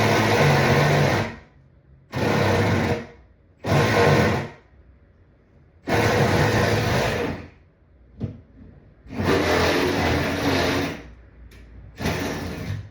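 Power drill boring a hole through a wooden joist, run in about six short bursts of a second or two each with brief pauses between, until the bit breaks through.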